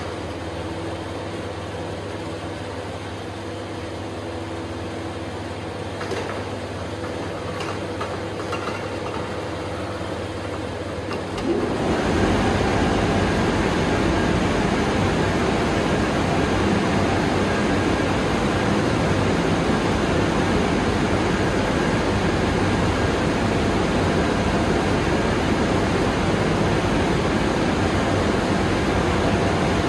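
Low steady machine hum, then about twelve seconds in a loud, steady rush of air starts: the cargo air shower's blowers switching on and blasting air from its side nozzles during a test run.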